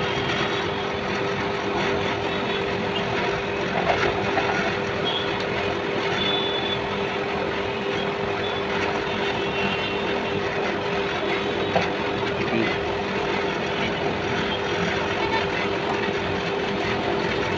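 Monkey hoist's 5.5 hp electric motor running steadily under load with a constant hum, winding in the steel cable to haul a trolley of sand up.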